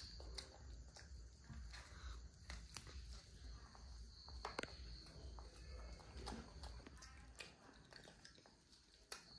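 Near silence with faint, scattered clicks and taps from a toddler and a monkey eating corn on the cob: bites, chewing and the cobs handled on the table.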